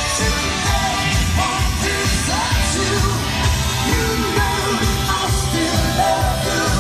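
A song with a singer and a steady beat playing from the car's factory 9-speaker stereo, heard inside the cabin.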